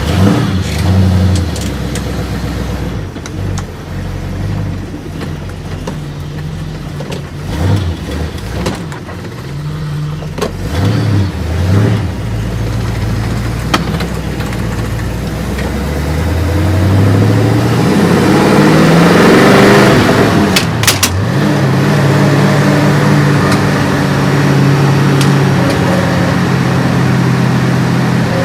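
A 1965 Ford Galaxie's engine, warmed up to temperature with a newly replaced HEI ignition module, pulling away on a drive: several short rises in revs, then a long climb in revs to a peak about twenty seconds in, a sudden drop, and steady running.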